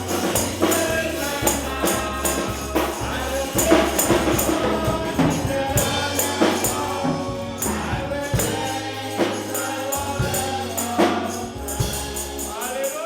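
Gospel praise song: a choir singing over a steady bass line, with a tambourine shaken in a regular rhythm.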